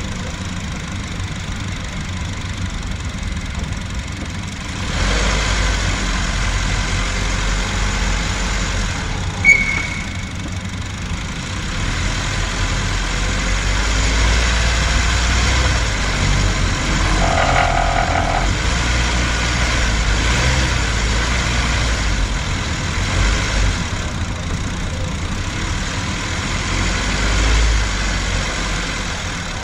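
Ninth-generation Honda Civic hatchback engine running, heard from the engine bay, pulling harder from about five seconds in as the car climbs, with the rattling noise that shows up under load on climbs. A single sharp click stands out about a third of the way through.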